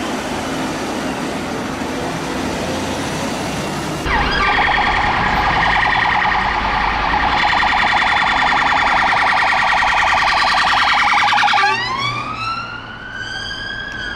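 Road traffic noise, then, from about four seconds in, a Metropolitan Police Vauxhall Astra's siren: a fast pulsing tone for about seven seconds that switches to a slow wail, rising and then starting to fall near the end.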